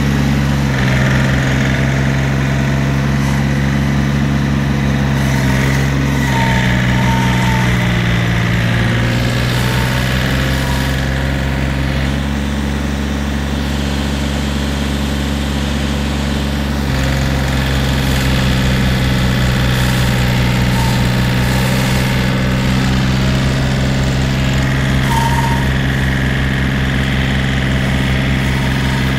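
John Deere 870 compact tractor's three-cylinder diesel running steadily while it powers a snowblower through a snow bank, its note shifting slightly in pitch a few times.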